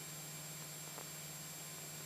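Steady hiss over a low, even hum from a Cessna 172SP's cabin in cruise flight, with a couple of faint ticks.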